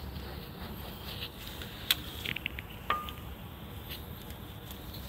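Scattered light metallic clicks and taps of hand tools working on bolts, the sharpest about two seconds in and one just before three seconds that rings briefly, over a steady low hum.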